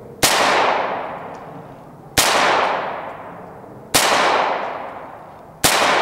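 Ruger Mark III Target .22 LR semi-automatic pistol firing four single shots, a little under two seconds apart, each sharp crack trailing off over about a second and a half.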